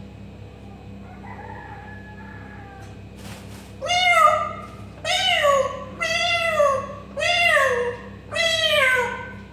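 Parrot imitating a cat's meow: after a faint soft call, five loud meows in a row about a second apart, each rising and then falling in pitch.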